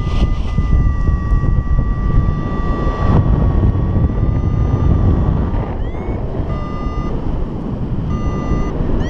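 Paragliding variometer sounding over wind rush on the microphone: a steady electronic tone for about five seconds, then a quick rising chirp near the middle followed by short repeated beeps.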